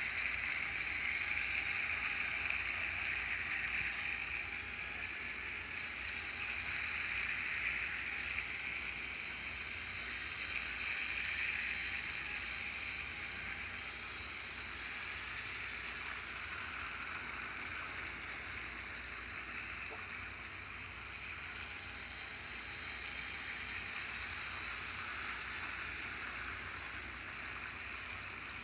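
Battery-powered TrackMaster toy trains running on plastic track, their small gear motors giving a steady whirring hiss that wavers as they go round.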